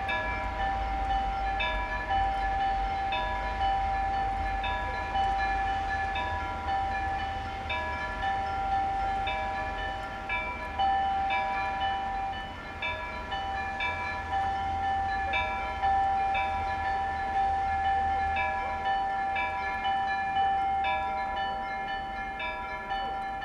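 Orthodox church bells ringing a peal: several bells of different pitches struck over and over in a quick, even rhythm, their tones ringing on and overlapping, over a steady low rumble.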